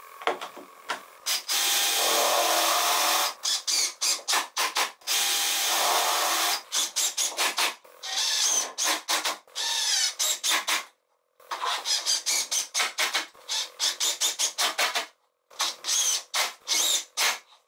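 A few light clicks of a one-handed bar clamp being closed, then a DeWalt cordless impact driver driving screws into pine: longer runs of a second or two alternating with many short trigger bursts as each screw is set.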